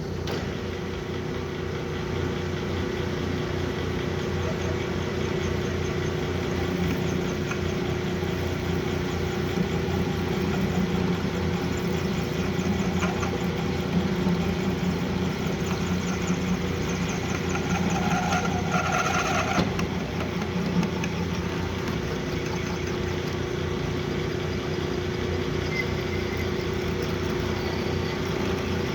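Metal lathe running steadily with a constant hum and low rumble. About two-thirds of the way through, a short higher-pitched whine rises over it.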